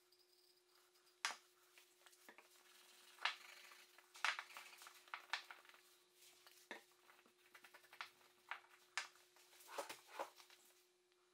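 Light knocks and clicks of small wooden pen-box parts being handled and set down on a workbench, with a rag rubbing over the wood between them. A steady faint hum runs underneath.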